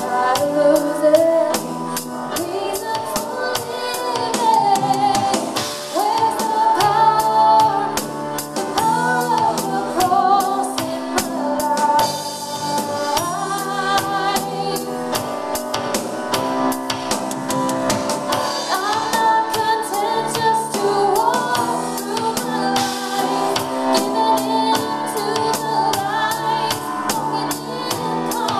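Live worship band playing a song: a woman sings lead over a Yamaha MM6 keyboard, a drum kit keeping a steady beat and an electric guitar, with backing voices joining in.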